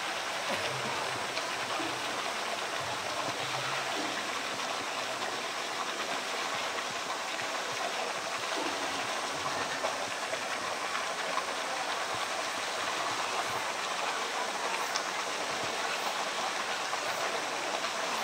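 Steady rushing of running water, an even hiss that holds at one level throughout.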